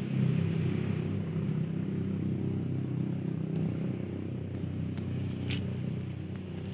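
An engine running steadily with a low hum that slowly fades away, with a few faint sharp clicks in the second half.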